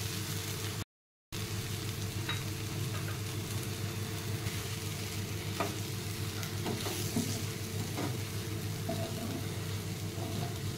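Onion-tomato pepper masala sizzling in a frying pan as whole boiled eggs are stirred through it with a wooden spatula, with a few light taps and scrapes of the spatula. The sound cuts out completely for a moment about a second in.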